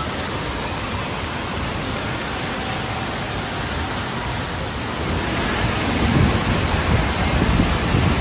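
Steady rush of splashing, falling water in an indoor water park, growing louder about five and a half seconds in.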